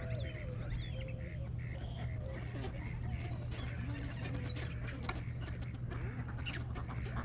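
Ducks and other birds calling: many short, scattered calls over a steady low background rumble.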